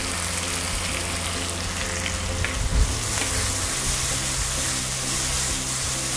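Ground chili-and-shallot spice paste sizzling in hot oil in a wok, stirred and scraped with a spatula. This is the sauté stage, cooking the paste until fragrant.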